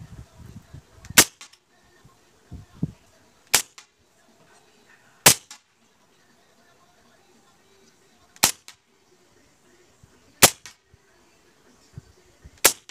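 Hatsan BullMaster .22 semi-automatic PCP air rifle firing six shots, each a sharp crack, spaced about a second and a half to three seconds apart. A few dull low thumps come between the first shots.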